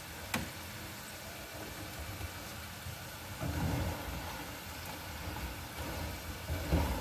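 Cooking at a gas stove over a steady low hum: a sharp click about a third of a second in, then low knocks around the middle and again near the end as food is dropped into a pot and stirred with a spoon.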